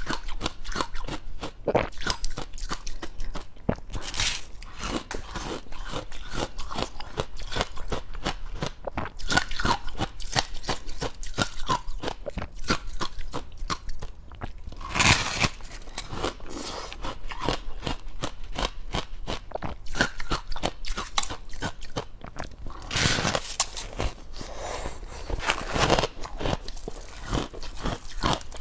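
Close-up crunching and chewing of dry, powdery freezer frost: a rapid run of crisp crunches, with a few louder bites about 4, 15 and 23 to 26 seconds in.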